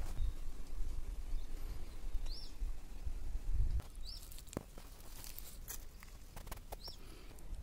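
Outdoor ambience: a bird chirping three times with short rising calls, over a low rumble that eases about halfway through and a few scattered clicks.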